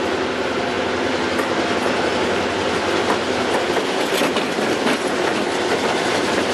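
EMD diesel freight locomotives passing close by at low speed, engines running steadily. Steel wheels rumble and clack over the rail joints of a wooden trestle several times.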